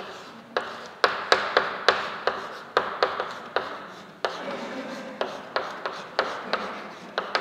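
Chalk writing capital letters on a chalkboard: a quick, irregular run of sharp taps as each stroke starts, with scratchy scraping between them.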